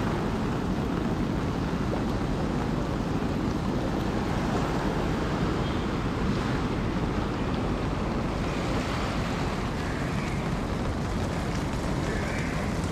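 Steady rushing of the flood-swollen Narayani River, with wind buffeting the microphone.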